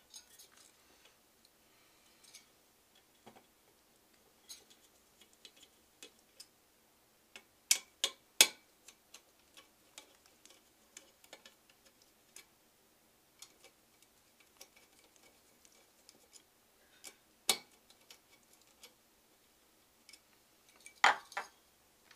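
Screwdriver loosening the small screws on the base of a Zalman CNPS10X Optima CPU cooler, making scattered light metallic clicks and ticks. A few sharper clicks stand out, and there is a quick cluster of them near the end.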